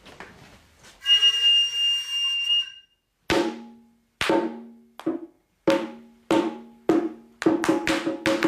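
A long, high held note about a second in, then a Japanese drum struck in single ringing strikes about once every half second to second, quickening into a fast run near the end.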